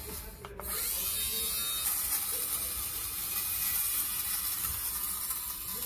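Xiaomi Mijia electric lint remover running, its rotating blades whirring steadily as it is pushed over a towel, shaving off fabric pills. The sound dips briefly about half a second in, then holds steady.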